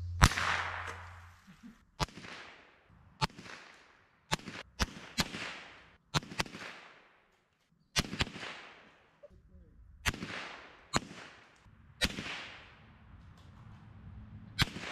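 Gunshots, about a dozen sharp cracks at uneven intervals, each with a trailing echo.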